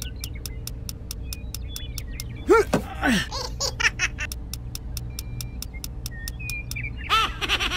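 Cartoon sound effects: a steady rapid ticking, about five ticks a second, under high-pitched cartoon giggles and laughter about two and a half seconds in and again near the end.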